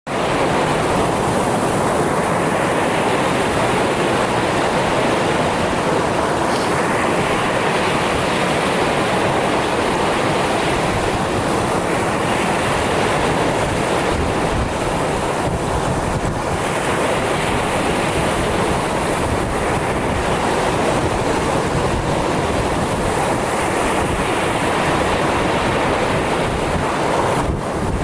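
Lake waves breaking on a stony shore: a steady, unbroken wash of surf from many small breakers.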